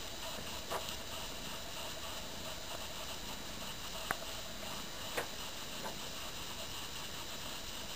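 Quiet room tone: a steady hiss with a few faint, scattered clicks.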